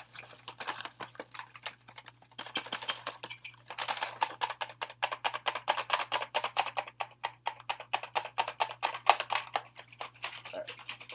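Rapid, irregular tapping and clicking from handling BinaxNOW COVID-19 Ag Card home-test kits, several clicks a second with brief pauses.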